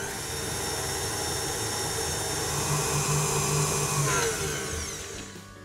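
Electric stand mixer running with its flat beater through almond cream batter, a steady motor whine that winds down and fades from about four seconds in.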